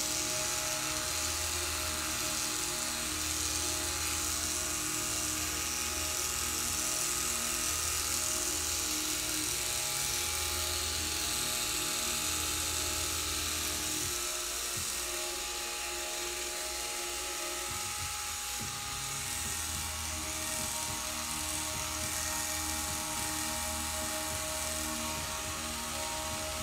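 Electric pet clippers buzzing steadily as they shave through a cat's fur, over background music with a pulsing low beat.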